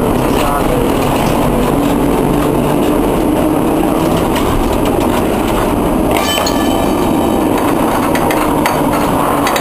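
Historic tram running along street track, heard from inside the driver's cab: steady running noise with a low hum. About six seconds in comes a run of clicking and rattling with some brief high squeals.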